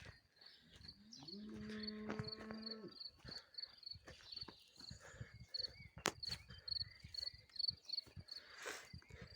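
A cow lowing once for about a second and a half, over a steady, rapidly pulsed chirping of insects. Scattered light clicks and rustles, with a sharp click about six seconds in.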